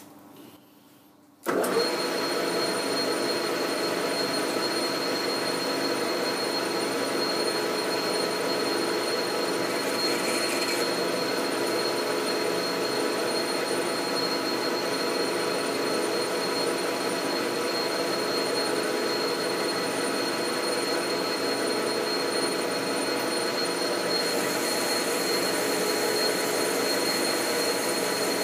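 Metal-turning lathe switched on about a second and a half in, then running steadily with a gear whine. A higher hiss joins in for the last few seconds.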